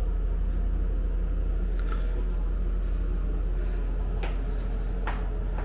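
Steady low hum of room tone in a small tiled bathroom, with a few soft clicks about two, four and five seconds in.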